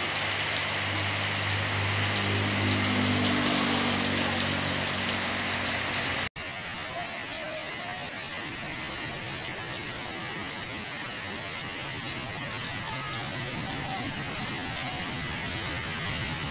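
Heavy rain pouring onto a paved road and the plants around it, a steady hiss. A low steady hum sits under the rain for about the first six seconds; then the sound cuts out for an instant and the rain carries on a little quieter.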